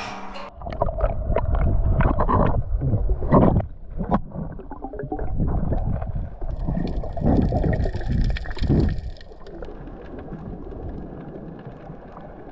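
Water rushing and bubbling against an underwater camera as a snorkeler dives and swims, with scattered clicks and knocks. The sound drops to a quieter, even underwater hiss about nine seconds in.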